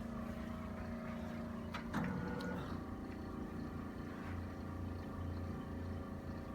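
Steady low mechanical hum, with a short knock about two seconds in.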